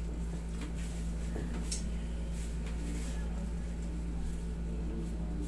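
Steady low room hum, with faint rustles of clothing and body movement and a few soft breaths.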